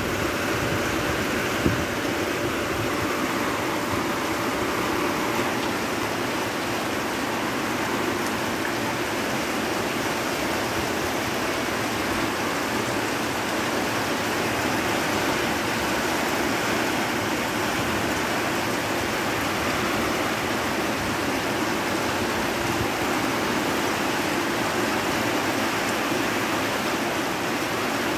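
Heavy rain pouring down in a storm, a steady dense hiss.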